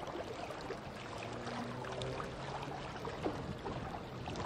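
Steady outdoor background noise with a faint low hum and a few small ticks.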